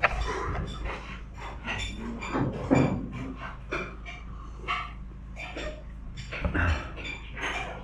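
Table sounds of someone eating: a run of short clinks and knocks of cutlery and dishes, some with a brief ringing, over a low steady room hum.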